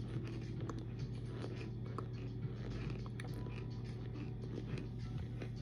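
A mouth chewing baked cornstarch: irregular small crunches and crackles as it is bitten and ground, over a steady low hum.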